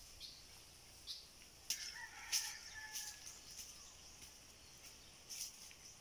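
A rooster crows faintly once, about two seconds in, over scattered short, high chirps.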